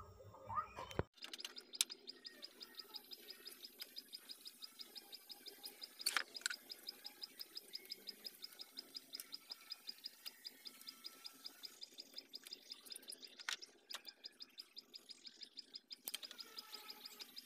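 Faint, rapid high-pitched chirping, about five chirps a second and very regular, with a few sharp clicks scattered through it.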